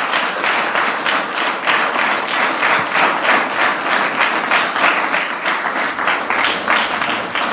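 Audience applauding: a dense spatter of many hands clapping, easing off near the end.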